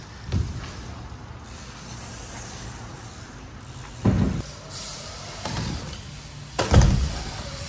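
BMX bike tyres rolling with a steady low rumble over skatepark ramps and floor. The bike hits the ramp with thuds about half a second in and at about four seconds, and a louder thud near seven seconds.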